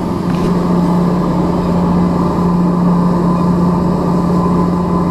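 Boat engine running steadily under way at speed, a loud even drone at one constant pitch, over the rushing churn of the wake.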